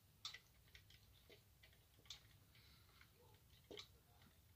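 Faint, scattered light clicks and knocks, about five at uneven spacing, from handling a homemade plywood stove gimbal with its metal brackets and pivot bolts.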